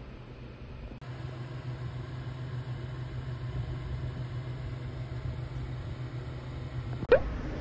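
Steady low mechanical hum. About seven seconds in there is a sharp click and a quick rising squeak.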